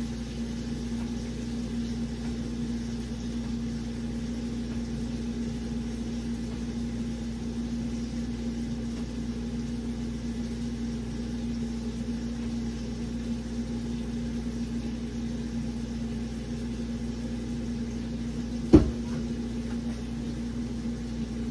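Steady low hum of a kitchen appliance motor, with one sharp knock near the end.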